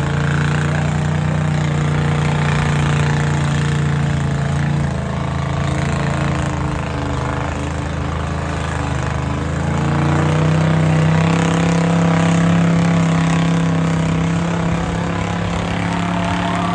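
An engine running at a steady speed, its pitch and loudness picking up a little about ten seconds in and then holding.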